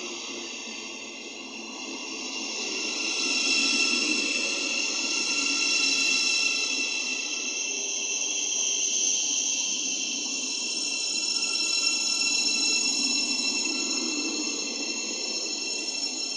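Thameslink Class 700 electric multiple unit running into the platform and slowing, with a rumble of wheels on rail and a high-pitched whine in several steady tones.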